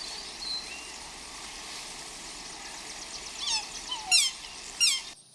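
Swan calling: three loud honks, each falling in pitch, in the second half, over a steady outdoor background with faint small-bird chirps.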